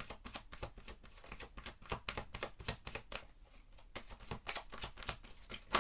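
A deck of oracle cards being shuffled by hand: a quick, irregular run of crisp card clicks and slaps, with one sharper snap near the end.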